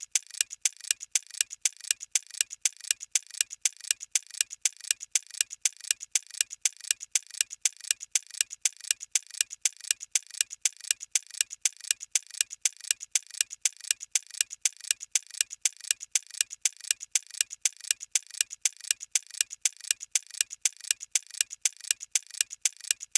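Clock-ticking countdown sound effect: sharp, even ticks at about three a second, marking the time allowed to answer a quiz question.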